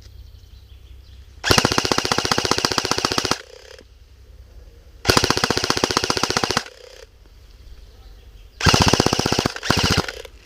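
Airsoft rifle firing full-auto bursts of rapid, evenly spaced shots, loud and close. Two bursts of about two seconds and a second and a half, then two short bursts near the end.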